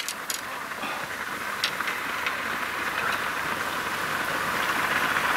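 Steady rushing hiss of splashing water, with a few sharp knocks or splashes near the start.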